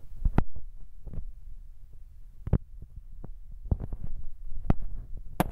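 Phone microphone handling noise: a low rumbling and rubbing as the phone moves against camouflage clothing, with scattered sharp knocks and clicks.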